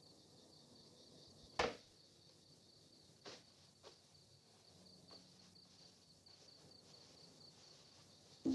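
Faint insects chirring, a steady high pulsing, broken by a few short clicks, the loudest about one and a half seconds in.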